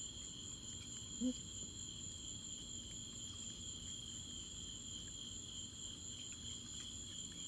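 Steady chorus of night insects trilling on two unbroken high pitches. A short, rising vocal murmur about a second in.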